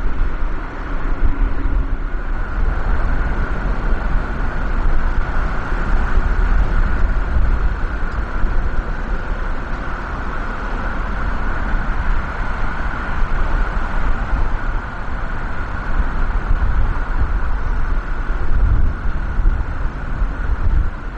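Twin GE90 turbofans of a Boeing 777F freighter at takeoff power during the takeoff roll and liftoff: a loud, steady jet noise over a deep rumble. It grows stronger about two and a half seconds in.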